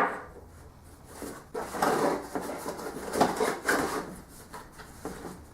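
Cardboard packaging being handled and pulled out of a box: a sharp knock at the start, then irregular scraping and rustling.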